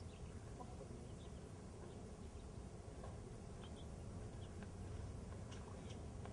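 Faint outdoor background: a steady low rumble with a few faint, short high ticks or chirps scattered through it.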